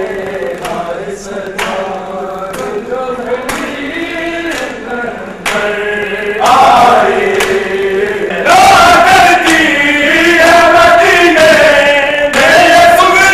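A crowd of men chanting a Muharram nauha (mourning lament) together, with a sharp slap about once a second from chest-beating (matam) in time with the chant. The chanting grows louder in the second half.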